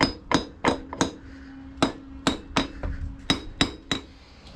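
A hammer tapping on a Moto Guzzi V7's bevel box (rear final drive housing) to knock it loose from the swingarm. About ten sharp taps come in two runs, four quick ones, a short pause, then six more, and each tap rings briefly.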